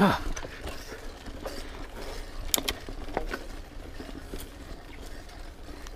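Mountain bike riding along a dirt singletrack: steady tyre and drivetrain noise with scattered sharp clicks and rattles, and a low wind rumble on the microphone. A short falling sound comes right at the start.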